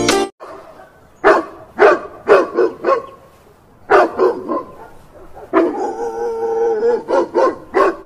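A dog barking in quick runs of short, sharp barks, with one longer drawn-out howling call about two thirds of the way through.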